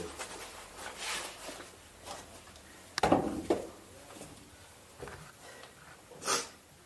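Knocks and scuffs in a small stone chamber: one loud thump about three seconds in, a softer one half a second later, and a short sharp scrape near the end, with faint shuffling between.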